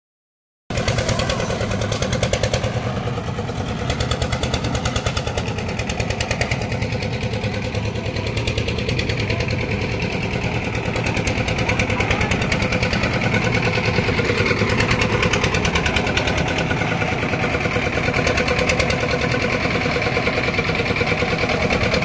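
Engine of a lift concrete mixer running steadily with a fast, even firing beat. It cuts in abruptly under a second in.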